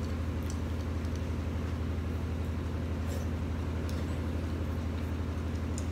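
Steady low hum at constant pitch, several even tones stacked low down, with no change in level; the kind of drone a running motor or electrical appliance in the room gives.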